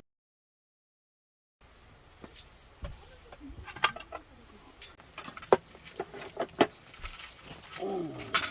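Silence for over a second, then scattered clicks and clinks of small hard objects being handled, with a couple of brief pitched squeaks.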